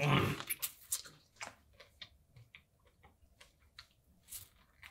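A man's throaty, grimacing exhale right after a swig of strong ginseng liquor, falling away within about half a second. Then scattered small clicks and mouth noises, and a short juicy bite into an orange near the end.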